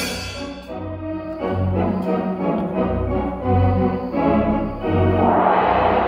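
Theatre pipe organ playing live cartoon accompaniment, with sustained chords over repeated low bass notes. About five seconds in, a swelling hiss of a storm sound effect rises over the music as the rain-and-thunder scene begins.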